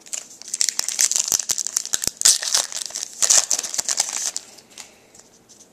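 Foil wrapper of a hockey card pack crinkling and tearing as it is ripped open by hand: a dense run of sharp crackles lasting about four and a half seconds, dying away near the end.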